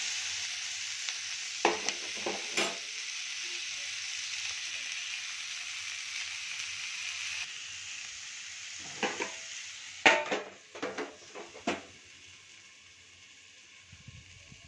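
Sliced ivy gourd (kundru) sizzling in oil in an iron kadhai, with a steel spoon scraping the pan a few times early on. About nine to twelve seconds in come several sharp metal clanks, the loudest just after ten seconds, as a steel plate is set over the kadhai as a lid, and the sizzle then sounds quieter.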